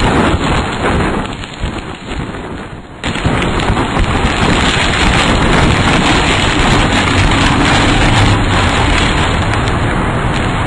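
Strong wind and rain buffeting a tornado probe camera's microphone close to a tornado, heard as a dense rushing noise. It is weaker at first, then jumps louder about three seconds in and stays steady.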